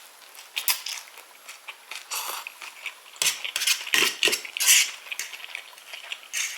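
Metal cutlery clinking and scraping against a dish in a string of short, irregular clicks, busiest in the second half, as food is gathered up from the plate.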